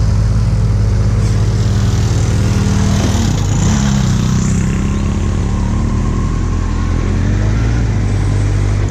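Kawasaki Z800's inline-four engine running under way, with loud wind noise on the camera microphone. About three and a half seconds in, the engine note dips briefly, then climbs again.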